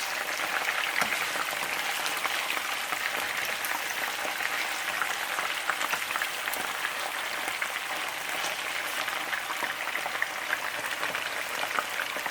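Chicken pieces frying in hot oil in a pot as they brown: a steady sizzle and crackle of spattering oil.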